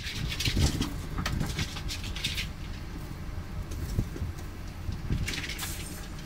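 Dry straw and hay rustling in short bursts as two-week-old rabbit kits scramble through their nest bedding, over a steady low rumble.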